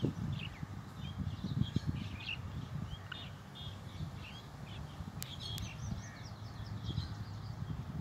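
Small birds chirping and singing in quick, scattered short notes throughout, over a constant uneven low rumble. Two sharp clicks come a little after the middle.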